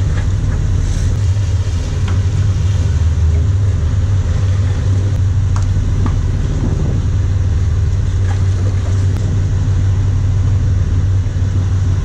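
Boat engines running with a steady low drone, under an even hiss of water rushing past the hull.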